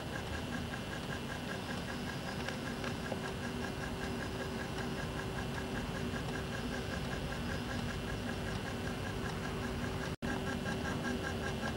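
Level-crossing warning bell ringing in a rapid, even beat over a steady hum and hiss. The sound cuts out for an instant near the end.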